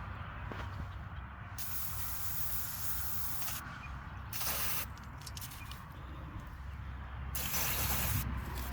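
Aerosol can of Liquid Wrench penetrating oil sprayed onto a rust-seized hitch pin in three hissing bursts: a long spray, a short one, then another. The oil is being applied to free the pin.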